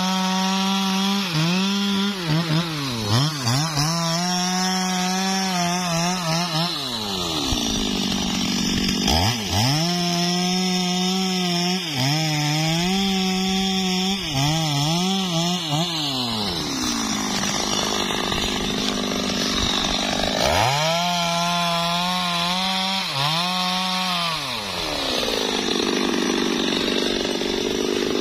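Stihl two-stroke chainsaw cutting into a teak trunk. It runs at high revs in three long spells, the pitch sagging and recovering as the chain bites, and drops back between them.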